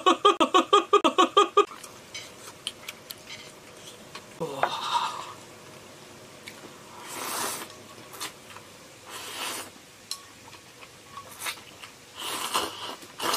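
Close-up eating sounds: noodles slurped and chewed, with light clicks of chopsticks on a metal bowl, and a slurping sip from the bowl near the end. It opens with a second or so of rapid, rhythmic vocalizing.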